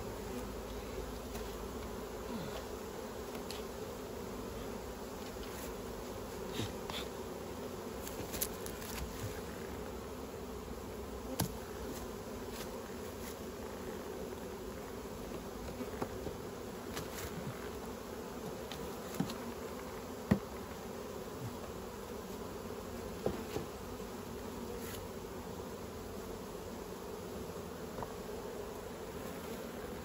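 Honeybees from an opened hive buzzing steadily in a dense swarm-like hum. A few short, sharp knocks stand out over it now and then.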